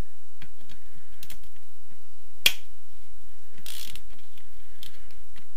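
Hand socket ratchet turning crankcase bolts loose: scattered ratchet clicks, with one sharp crack about two and a half seconds in and a short rasp about a second later.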